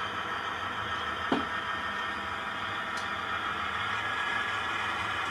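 Steady mechanical hum of a running H0 model railway, with a sharp click about a second in and a fainter tick a couple of seconds later.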